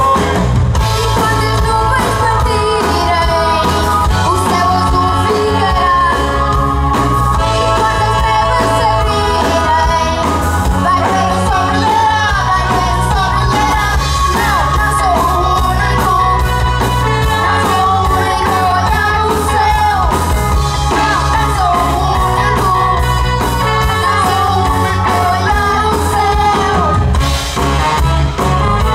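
Live pop-rock band playing, with electric guitars, keyboard and a steady drum beat, while a boy and a man sing in Portuguese into hand microphones.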